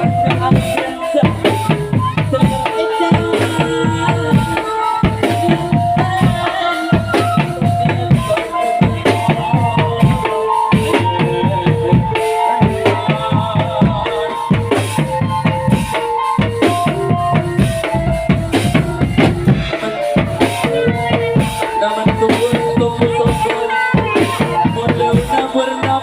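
Drum band music for a can macanan tiger dance: bass and snare drums beating a fast, steady rhythm under a held melody line that moves from note to note.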